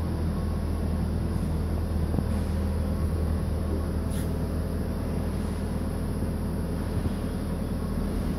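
2004 Haas TM-2 CNC toolroom mill running with a steady low hum. A single faint click about four seconds in.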